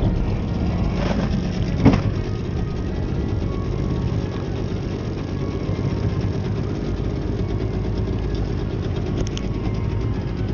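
Small boat motor running steadily at trolling speed, a low, even hum. There is one sharp knock about two seconds in.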